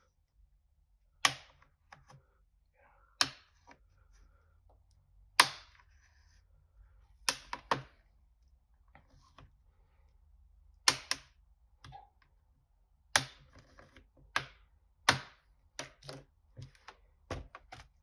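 Plastic base cover of a Lenovo ThinkPad T14 Gen 2 laptop being pried off along its edge: its retaining clips unsnap one after another as about ten sharp snaps at irregular intervals, with fainter clicks and scrapes between.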